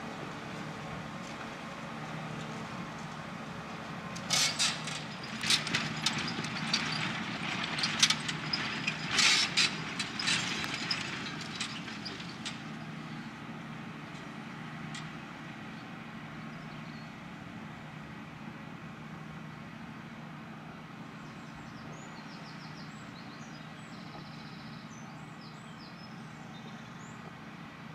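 Valtra T 214 tractor engine running steadily under load while ploughing. A flurry of sharp clicks and knocks comes about four seconds in and dies away by about twelve seconds.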